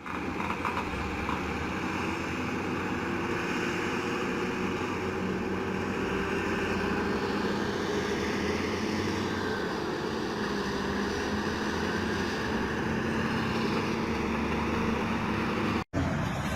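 Heavy construction machine's diesel engine running in a steady drone, cut off abruptly near the end.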